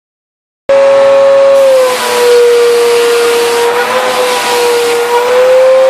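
Vacuum cleaner switching on about a second in and running with a loud, steady high whine over rushing air. The pitch dips slightly just before two seconds in and wavers a little after that, as it is worked over a golden retriever's coat.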